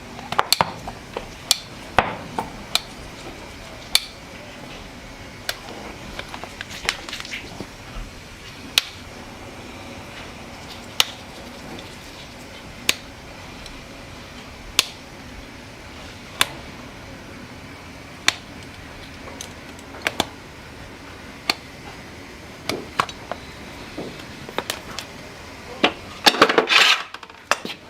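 Sharp taps of a farrier's tools on a horse's hoof, one every second or two, with a quick flurry of louder clatter near the end.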